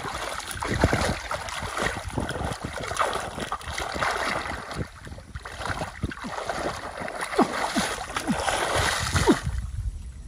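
Water splashing and sloshing in quick, irregular strokes, which stop suddenly about nine seconds in.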